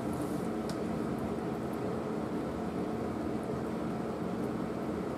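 Steady mechanical hum with a constant low drone and an even hiss, and a few faint ticks near the start.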